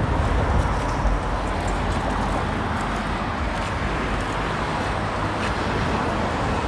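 Steady road traffic on a busy city street: cars passing by in a continuous low rumble with tyre noise.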